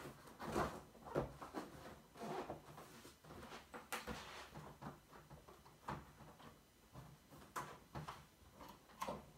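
Light knocks, clacks and rustling from things being handled and set down inside a wire-grid C&C cage, coming at irregular intervals, with a brief rustle about four seconds in.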